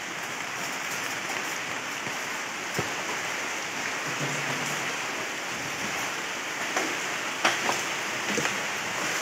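Steady rain falling on floodwater. A few sharp knocks come through it, one about three seconds in and a cluster in the last couple of seconds.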